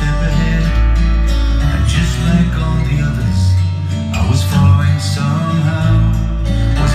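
A song with guitar and a deep, shifting bass line played loud over a home-theatre speaker system, an instrumental passage between sung lines.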